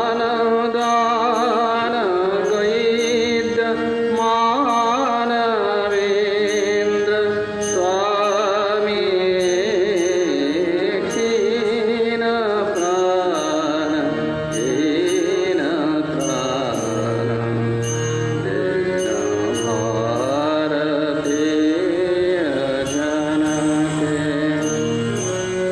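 A male voice singing a devotional hymn over sustained harmonium chords, with small hand cymbals ticking in a steady beat.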